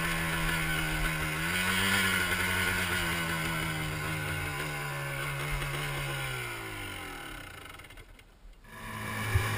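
Sport ATV engine running steadily at low revs, with a slight rise in pitch early on. About six seconds in, the pitch sinks and the sound dies away, like the engine winding down to a stop.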